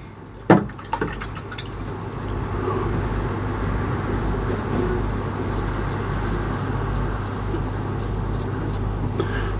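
Strong wind outside, a steady rush with a couple of knocks near the start as it shakes the windows. In the second half comes a run of short scratchy strokes, about three a second, from a safety razor cutting stubble.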